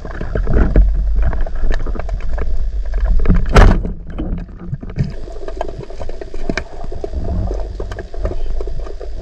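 Wooden speargun fired underwater about three and a half seconds in, one sharp snap. It is heard against a muffled underwater rumble with scattered clicks.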